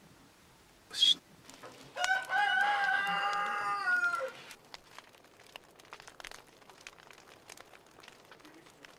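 A rooster crowing once, a long call of about two seconds that drops in pitch at the end, after a short sharp sound about a second in. Faint crackling of a wood fire follows.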